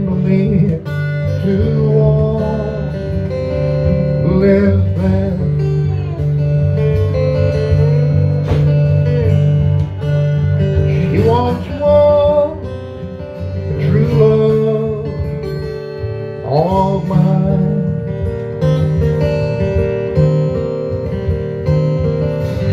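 Acoustic guitar played lap-style with a slide: plucked notes ringing over a steady bass, with repeated upward slides into notes.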